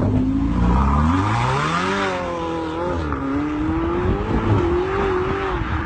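A supercar's engine revving as the car pulls away and accelerates. The note climbs in pitch over the first two seconds, then wavers as the car drives off.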